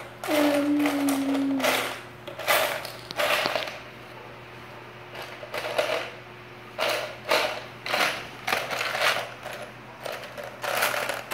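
Loose Lego bricks clattering and rattling against each other and the plastic bucket as a hand rummages through them, in irregular bursts of clicking.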